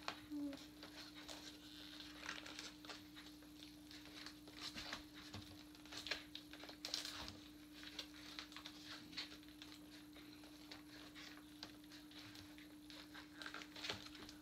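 Faint scattered rustling and clicking of cardboard packaging and the prop being handled, over a steady hum.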